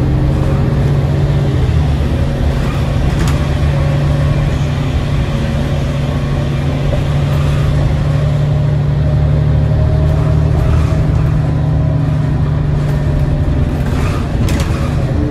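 Inside a 2010 New Flyer D40LF city bus under way: its Cummins ISL 8.9-litre six-cylinder diesel and drivetrain run with a steady low drone over road noise. A few brief clicks come near the end.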